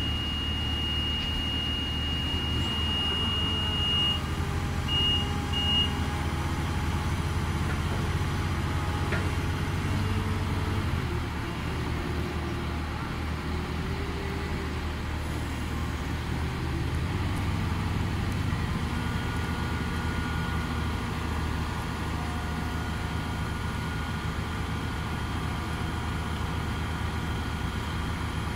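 Magni HTH 16.10 telehandler's diesel engine running steadily, its pitch shifting as the machine moves with a concrete block on its forks. A high warning beeper sounds continuously for the first four seconds, then gives two short beeps.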